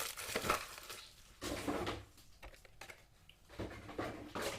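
Packaging and the unboxed drive being handled, heard as rustling and light knocks in three short bursts.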